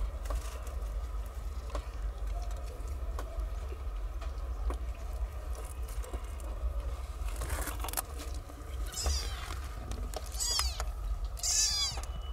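Newborn kittens mewing while nursing: about three short, high-pitched mews in the last few seconds, over a low steady hum.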